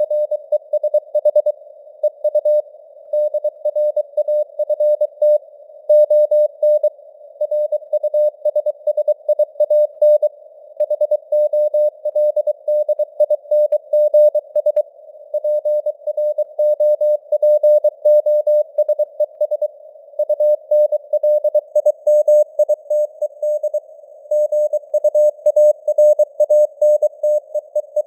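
Morse code (CW) at 23 words per minute: a single steady tone keyed on and off in dots and dashes, heard through a narrow band of simulated radio hiss. The signal strength rises and falls slightly, the fading (QSB) of a radio signal.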